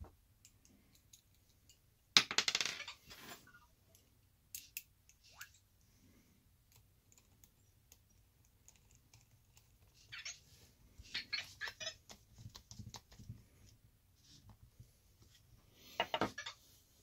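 Small hand-tool and metal-part handling on an RC car's front wheel: a sharp metallic clink with a short ring about two seconds in, then a run of light clicks and rattles as the wheel nut is run on with a nut driver.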